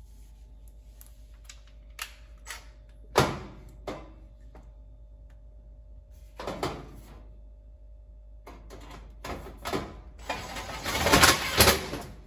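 Cordless drill driving screws into a range's sheet-metal back cover: sharp knocks and clicks of the panel and tool being handled, a short run of the drill about six seconds in, and a longer, louder run near the end.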